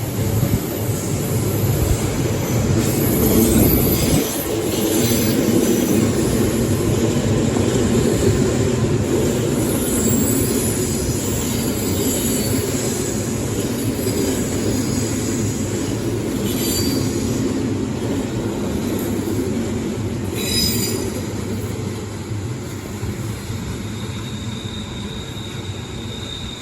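Odakyu Electric Railway train running slowly past a level crossing: a steady rumble of wheels on rail, with high wheel squeal and brief sharp squeals about two-thirds of the way through. It eases off near the end.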